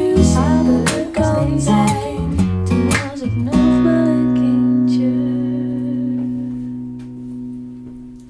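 A guitar-led song playing back through Strathearn SLC3 planar ribbon loudspeakers. The rhythm stops about three and a half seconds in, and a final chord rings on and slowly fades away as the song ends.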